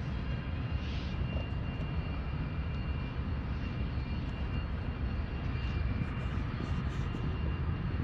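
Distant Norfolk Southern diesel locomotives rumbling steadily as they back slowly along the yard track.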